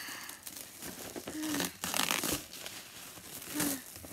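Plastic wrap crinkling and tearing in irregular bursts as it is pulled off a package.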